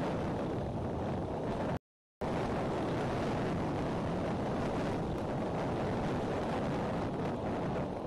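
Strong wind buffeting an outdoor nest-cam microphone: a steady, heavy rushing noise. It drops out completely for a split second about two seconds in.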